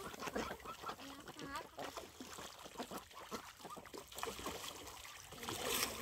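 Domestic ducks swimming and dabbling in flowing water, giving short calls among irregular small splashes and the trickle of the stream. There is a louder splash near the end.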